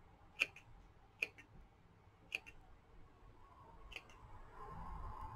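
Small craft scissors snipping excess lace and paper trim, four short, sharp snips a second or so apart.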